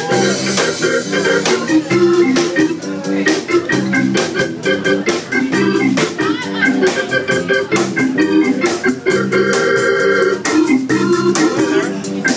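Live funk band playing an instrumental passage led by an electric organ sound from a stage keyboard, over a steady drum beat and bass.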